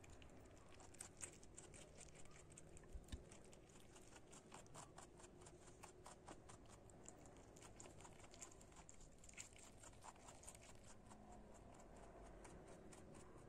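Rabbit chewing shredded cabbage: a faint, rapid crunching of quick bites, several a second, easing off near the end.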